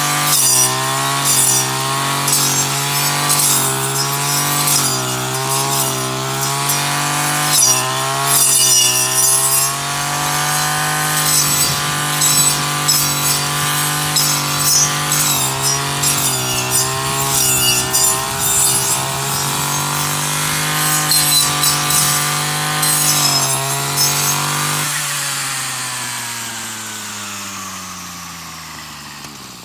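Petrol brush cutter engine running at high revs, its pitch dipping and rising with each swing as the blade cuts through tall grass and weeds, with hissing bursts where the blade strikes the stems. Near the end the throttle is released and the engine winds down, falling steadily in pitch and level.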